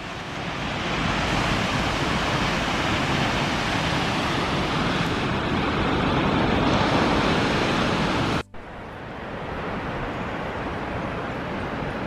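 Roar of a waterfall, the female fall of Chinda Falls: a loud, steady rush of falling water. About eight and a half seconds in it cuts off abruptly, then goes on quieter and duller.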